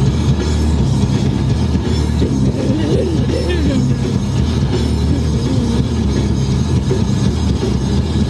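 Steady road and engine rumble inside a moving car, with music playing. A voice sings about two to four seconds in and again briefly around five to six seconds.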